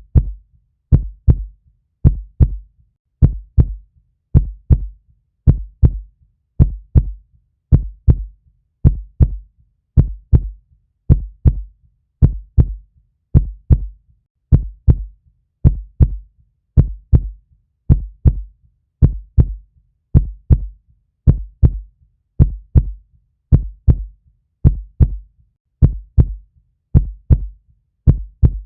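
Human heartbeat: a slow, steady rhythm of low double thumps (lub-dub), a little under one beat a second, repeating evenly.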